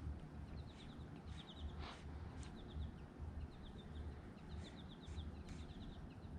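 Small birds chirping in quick runs of short, high notes, over a low steady rumble.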